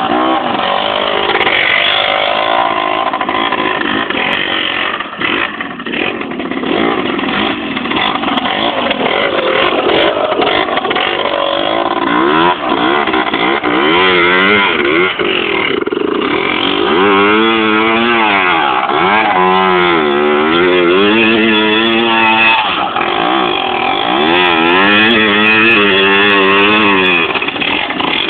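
Motorcycle engine running and being revved again and again, its pitch rising and falling in quick waves, most clearly in the second half.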